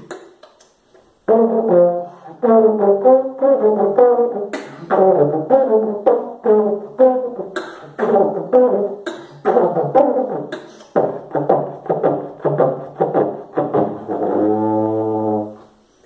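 Beatboxer's vocal trombone imitation: a fast rhythmic run of short, buzzy brass-like notes mixed with sharp mouth-made percussion clicks, starting about a second in. It ends on one long held low note.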